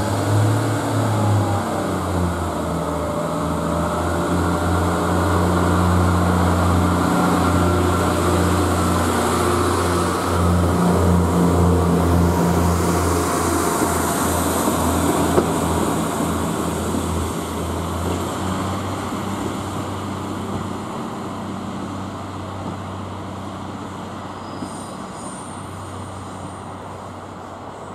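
Class 142 Pacer diesel multiple unit pulling away, its underfloor diesel engines giving a steady low drone. The drone grows loud as the train passes close by, then fades as it draws away.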